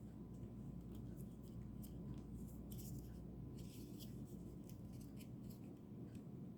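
Faint scattered metallic clicks and scrapes from a Gerber FAST Draw assisted folding knife being worked by hand, its blade and lock fiddled with in an unsuccessful attempt to close it left-handed.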